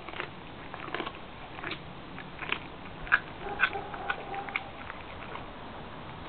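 Siberian husky biting and chewing into a whole raw chicken: irregular sharp crunches and wet clicks, loudest about three to four seconds in, easing off over the last two seconds.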